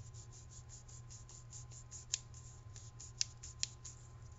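Faint, even ticking, about five a second, with a few sharper clicks, as a finely threaded lens assembly is turned by hand into a BNVD 1431 night-vision housing, its metal threads clicking as they seat. A low steady hum sits underneath.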